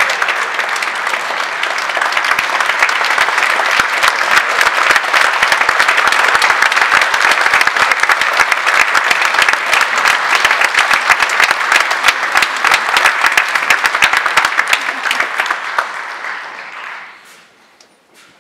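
Concert audience applauding, a dense patter of many hands clapping that grows a little louder, then dies away near the end.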